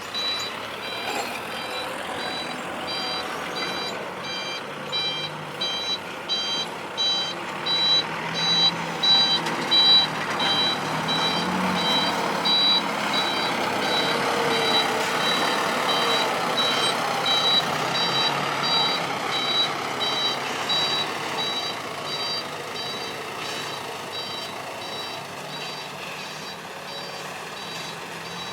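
Reversing alarm of a heavy vehicle on the earthworks beeping about twice a second over its running diesel engine, fading out near the end.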